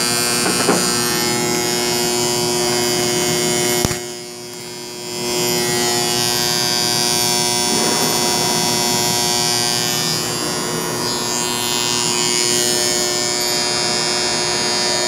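Electrical contactors humming: a steady buzz with many evenly spaced overtones. A sharp click comes about four seconds in; the buzz drops for a second or so, then comes back.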